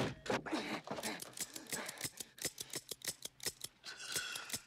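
Revolver mechanism clicking: a fast, irregular run of sharp metallic clicks, with a brief metallic ring near the end.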